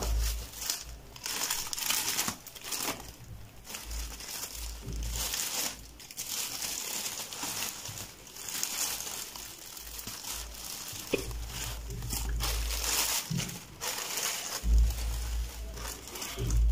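Thin clear plastic bag and bubble-wrap packaging crinkling and rustling in irregular bursts as a glass bathroom scale is pulled out of it by hand, with occasional dull low thuds from handling.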